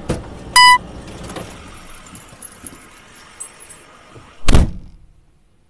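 Keys jangling in a pickup's cab as it comes to a stop, with a single short, loud electronic beep about half a second in. A loud heavy thump comes near the end, like a door shutting.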